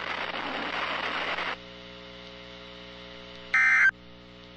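Weather radio static hiss that cuts off about a second and a half in, leaving a steady electrical hum. Near the end comes a short, loud burst of digital data tones: the first of the SAME end-of-message bursts that close the NOAA Weather Radio required weekly test.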